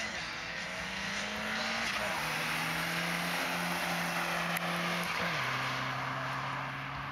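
Ford Sierra saloon's engine running hard as it is driven through the cones, its pitch holding steady and then dropping in two steps, about two and five seconds in, over tyre and road noise.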